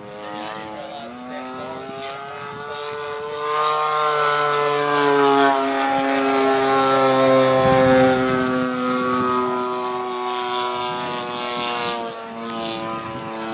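Engine and propeller of a 55cc radio-controlled Extra 300 aerobatic model plane flying overhead: a steady, buzzing engine drone. It grows louder a few seconds in, then eases off with its pitch sinking slightly as the plane passes and moves away.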